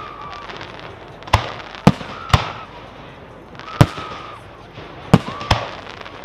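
Aerial firework shells bursting in the sky: six sharp bangs, several coming in quick pairs or triples about half a second apart, each followed by a short rumbling tail.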